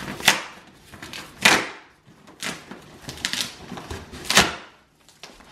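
Packing tape being peeled and ripped off a cardboard box in about five short tearing strokes, the loudest about a second and a half in and again near the end.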